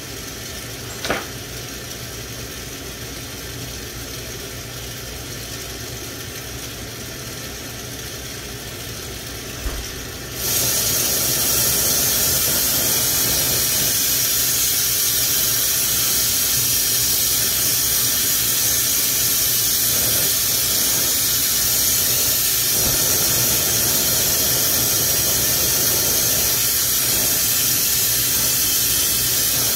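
Glassworking bench torch flame hissing steadily, with a short click about a second in; about ten seconds in the hiss jumps suddenly to a much louder, fuller rush and holds there.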